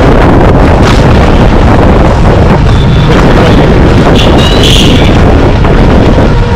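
Loud, constant wind buffeting the microphone over street traffic noise, with a few brief high tones about halfway through.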